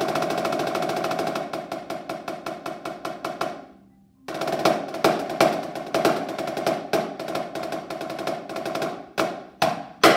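Rudimental concert snare drum solo played with sticks: a sustained roll breaks into spaced strokes and fades to a brief pause about four seconds in, then comes back loud with accented strokes and rolls, ending on three hard single hits, the last the loudest.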